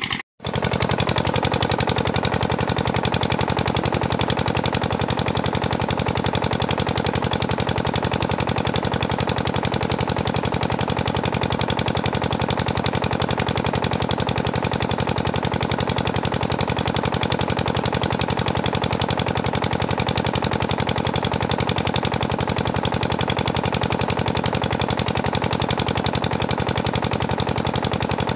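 Water pumpset engine running steadily at constant speed, with a fast, even knocking beat.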